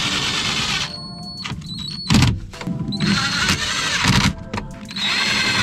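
Cordless power driver running in three short bursts, each about a second long, with a high whine over a hiss, driving screws that fasten a plastic dash panel back in place. A single clunk falls about two seconds in.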